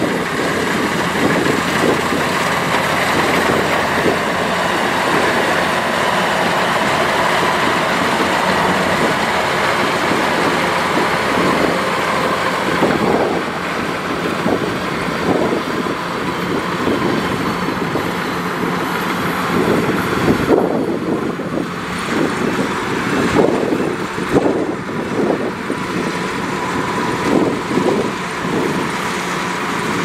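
Kubota DC105X tracked combine harvester working in a rice field: its diesel engine and threshing gear run with a steady whine. In the second half the sound turns more uneven and rattly, and about two-thirds through it grows duller as the machine moves past and away.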